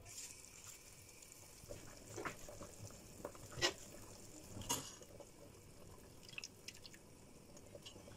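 Fish soup boiling in a large stainless-steel pot: a faint steady bubbling with a few sharper plops and pops every second or so.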